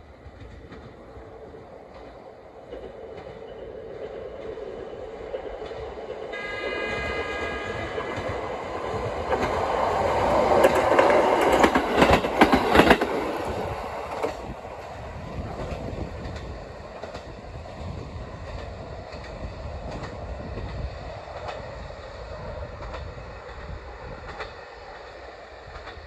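KiHa 40 diesel railcar sounding one horn blast of about two seconds as it approaches. It then runs through the station at speed, its wheels clacking over the rail joints, loudest about 10 to 13 seconds in. Its diesel engine rumble fades away as it recedes.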